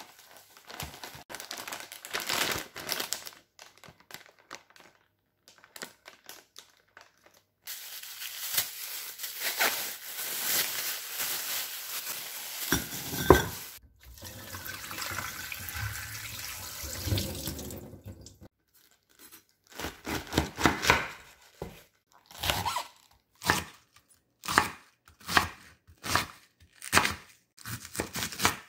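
Kitchen handling sounds: rustling, then a long rushing noise with tearing in it. From about two-thirds of the way in, a kitchen knife chops cabbage on a wooden cutting board in steady strokes about once a second.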